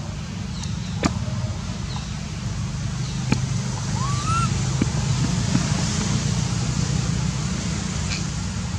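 Steady low rumble with a faint hiss behind it, a few light clicks, and one short rising-then-falling chirp about four seconds in.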